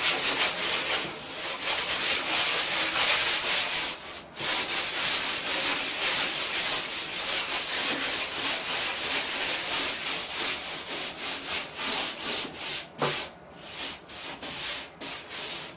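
Sandpaper rubbed by hand over plywood in quick back-and-forth strokes, a scratchy rasp that pauses briefly about four seconds in and again near the end.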